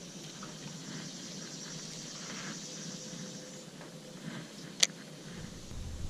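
Faint outdoor ambience on open water with a steady high hiss that fades out a little past halfway. A single sharp click near the end is the loudest sound.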